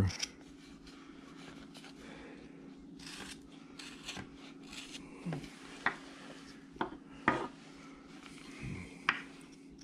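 Carving knife paring wood, shaving cuts to round the head of a hand carving: soft scraping strokes with a few sharp clicks in the second half.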